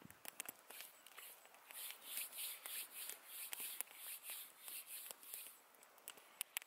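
A person chewing a bite of burger close to the microphone: soft crunching, about two to three chews a second, with a few small clicks.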